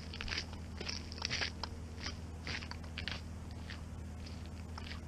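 Footsteps crunching on gravel, about two a second, over a low steady hum.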